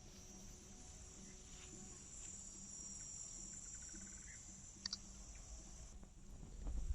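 Crickets trilling steadily in a high, continuous band, stopping about six seconds in, with a faint low hum and a couple of small clicks under it.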